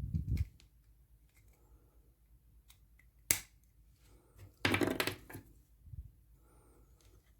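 Handling noises of small plastic items: a couple of knocks at the start, a sharp click about three seconds in, then a brief louder rustle or scrape and a soft thump.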